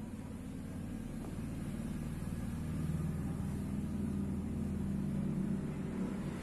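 Low, steady engine rumble, like a motor vehicle running, growing slowly louder.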